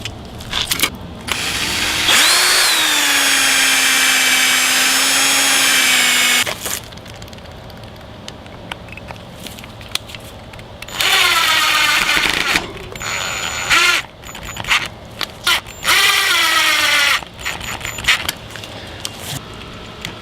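Electric drill running: one run of about four seconds that quickly spins up to a steady pitch, then several shorter bursts whose pitch falls as each one runs.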